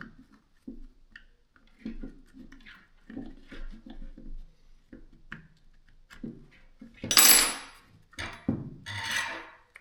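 Parts of a DeWalt cordless drill being taken apart by hand: scattered light clicks and knocks of plastic housing and small parts, then several louder scraping noises about seven seconds in.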